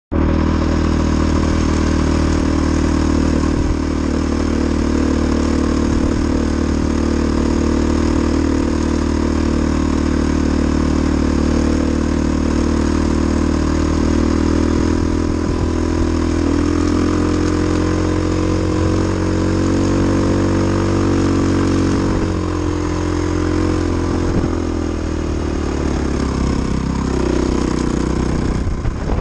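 KTM 450 XC-F dirt bike's single-cylinder four-stroke engine running under way across sand, its note rising in the middle and easing off again near the end.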